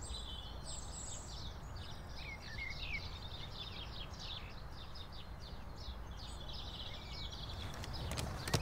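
Outdoor ambience: many small birds chirping continuously over a steady background hiss, with a few short whistled notes about two and a half seconds in.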